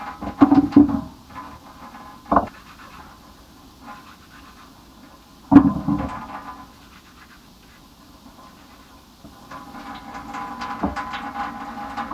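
Potatoes being washed by hand in a plastic bowl: sharp knocks and clatters about half a second, two and a half and five and a half seconds in, then a longer, steadier stretch of handling noise near the end.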